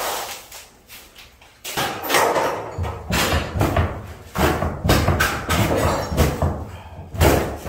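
Irregular heavy thuds and crashes of interior demolition work, starting about a second and a half in and coming in quick runs.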